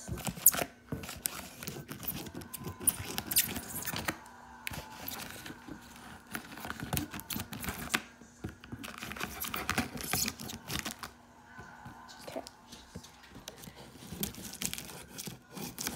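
Packing tape on a cardboard box being cut with scissors and torn, with irregular scraping, tearing and crinkling of the tape and cardboard as the box is opened.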